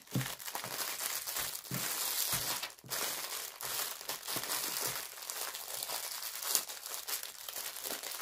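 Clear plastic wrapping around a rolled canvas crinkling continuously as the roll is handled and turned.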